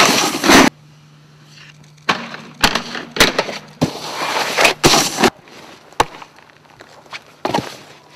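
Snowboard scraping and slapping across icy, packed snow, in several loud bursts: one at the start, a longer run of scraping two to three and a half seconds in, another near five seconds, then a sharp knock about seven and a half seconds in. A faint steady low hum runs underneath.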